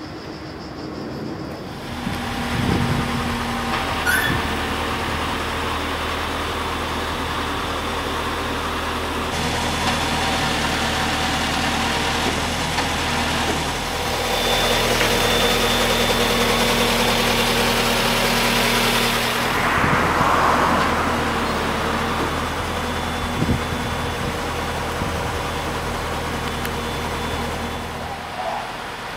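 An engine running steadily with a low hum, under a haze of outdoor noise that shifts a few times.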